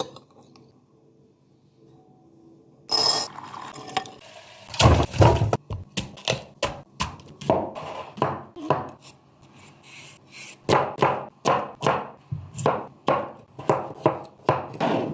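Kitchen food-prep sounds: a clatter about three seconds in, a few heavy thunks, then a steady run of chopping knocks about two a second.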